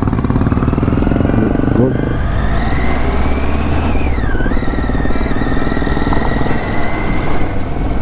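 Triumph Tiger 800's three-cylinder engine running under way, heard from the rider's seat. Its pitch rises gradually, dips sharply about halfway through, then holds steady.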